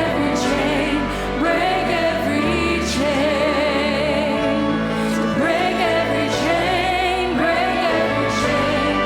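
Church choir and orchestra performing a worship song: voices over strings and held bass notes that shift every second or two.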